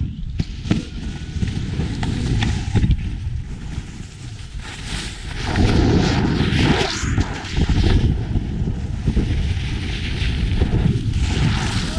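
Wind rushing over the microphone of a moving camera, with a snowboard's edge scraping and hissing on packed snow; the noise swells about halfway through as the rider carves a turn.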